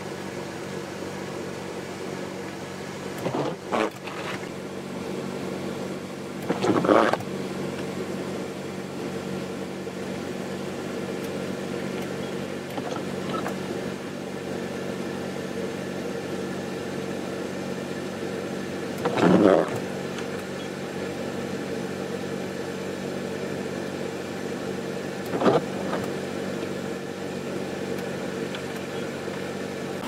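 Steady hum of a vehicle engine idling, with four brief louder bursts of noise spread through it.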